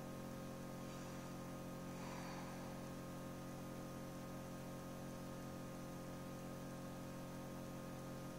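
Steady electrical hum of an egg incubator's fan motor, with a light hiss.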